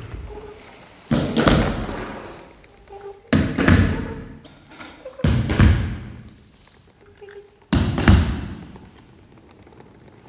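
Four heavy thumps about two seconds apart, each sudden and dying away over about a second.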